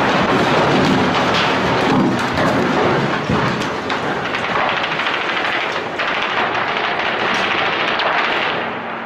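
Loud, dense roar and crackle in the seconds after a huge tunnel-bomb explosion, with rapid cracks of gunfire throughout. It dies away near the end.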